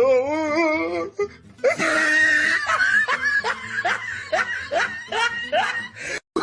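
A person laughing hard: a wavering laugh, then a long run of short rising bursts, about two or three a second.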